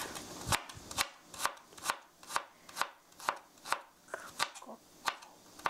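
Kitchen knife chopping an onion on a cutting board: a steady run of sharp knocks, about two strokes a second.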